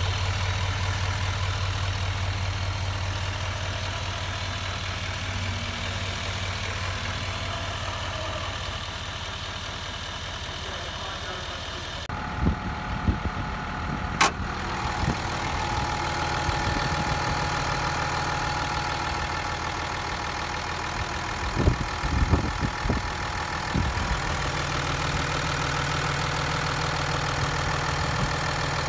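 Diesel truck engines idling steadily in open engine bays. About twelve seconds in, the sound cuts to a second engine, a Ram's 6.7-litre Cummins inline-six turbo diesel, with a sharp hood-latch click two seconds later and a few knocks about two-thirds through.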